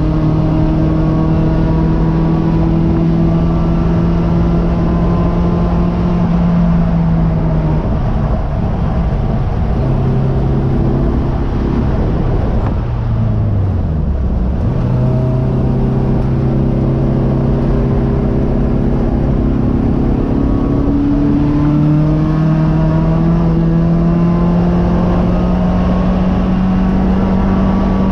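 Race car engine heard from inside the cockpit, pulling under load with its note climbing slowly. About halfway through the revs drop and the pitch falls briefly, then the engine picks up and climbs again toward the end.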